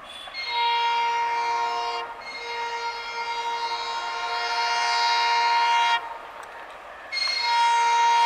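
Diesel locomotive's horn sounding three blasts as the train runs through without stopping: a medium blast, a long blast of about four seconds, then a short one near the end. Each blast is a steady chord of several notes, with the lower noise of the passing train between them.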